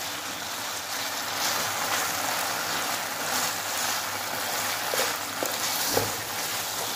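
Khoya sizzling in hot ghee in a nonstick frying pan as it is stirred and broken up with a slotted spoon: a steady hiss, with a few soft knocks of the spoon against the pan near the end.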